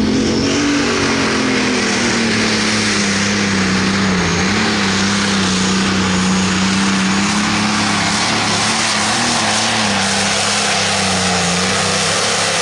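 Turbocharged diesel engine of a John Deere 7930 Limited Pro Stock pulling tractor running flat out under full load as it drags the pulling sled. It holds a steady high pitch with two brief dips, over a heavy rushing noise.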